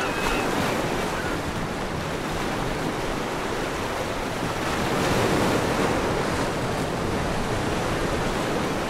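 Waves washing on the shore, a steady rushing noise that swells about five seconds in.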